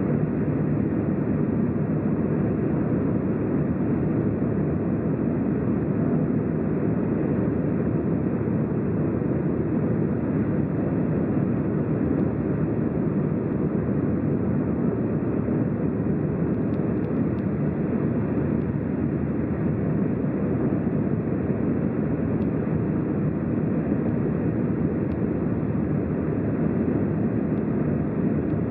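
A car driving steadily at motorway speed: an even rumble of tyre and engine noise that holds level throughout.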